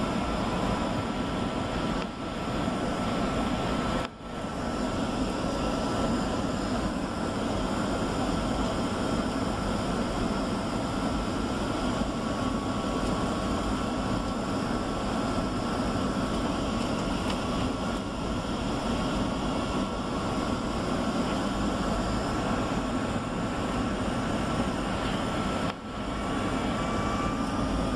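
Steady cabin noise of a Boeing 757-300 airliner on approach, heard from a front window seat: an even rush of jet engine and airflow noise with a faint steady high whine. The noise dips briefly a few seconds in and again near the end.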